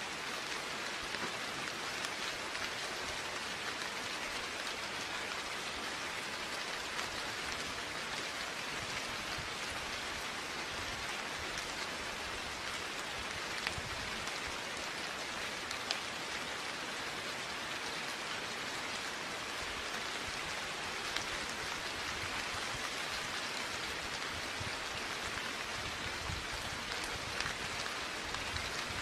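Steady rain falling on a surface: an even hiss of rainfall with scattered individual drops ticking here and there, a few landing a little louder.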